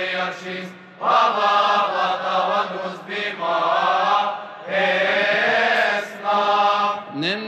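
Male voice chanting a slow, melismatic Coptic liturgical hymn in long phrases broken by short pauses, over a steady low held drone.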